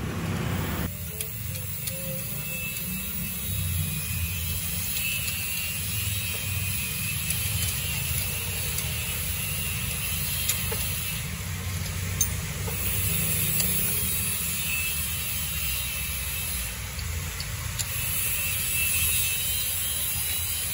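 Steady low rumble of workshop background noise, with a few faint light clicks of a hand tool working on the AC compressor mount.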